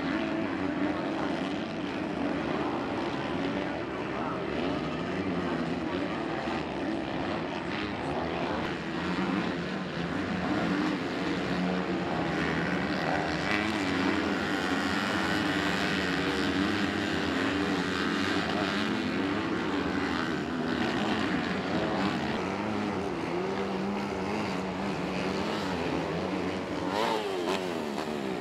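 Motocross bike engines revving on a dirt track. Their pitch rises and falls as the throttle opens and closes.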